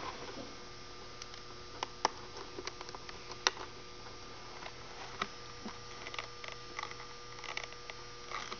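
Scattered light clicks and taps of small hardware being handled (the cable, washers, rollers and screws of an Easyboot hoof boot), the sharpest a little after two seconds and at about three and a half seconds, over a steady electrical hum.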